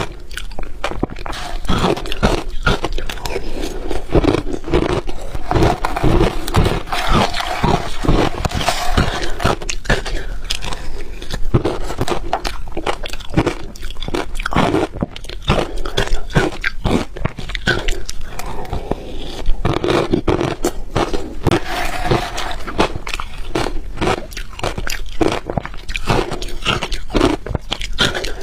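Close-miked biting and chewing of hard ice, with dense crunches and cracks coming several times a second throughout.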